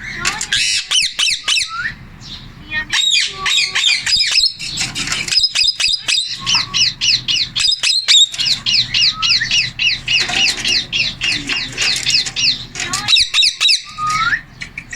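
Indian ringneck parakeet squawking and chattering in rapid runs of short, high chirps, many to the second, with brief pauses.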